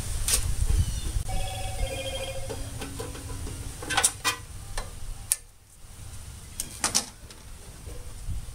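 Clicks and knocks of hands handling the plastic upper cover of an old Grizzly benchtop bandsaw while removing it, with sharp ones about four and about seven seconds in. A short ringing of several steady tones comes about a second and a half in, over a low steady rumble.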